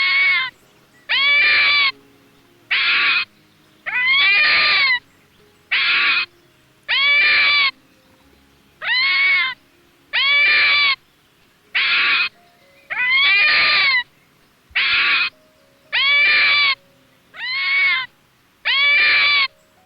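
A fox calling over and over: about fourteen high calls, each under a second long, with a pitch that rises and then falls. They come at uneven gaps of one to two seconds.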